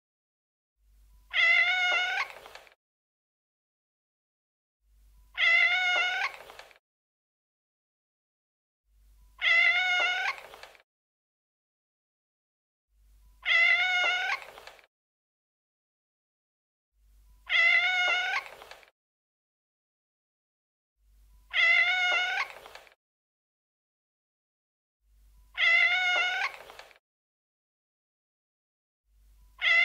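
A cat's meow, the identical call repeated every four seconds with silence in between, eight times: a single meow recording played on a loop. Each call lasts about a second and a half, loud at the start and trailing off.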